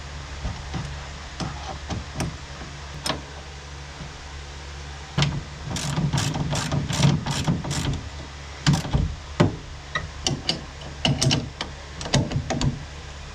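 A 7/16 wrench clicking and clinking on the hydraulic line fittings of a convertible-top cylinder as they are tightened. Around the middle there is a quick run of about four clicks a second, then scattered taps and knocks. A steady low hum runs underneath.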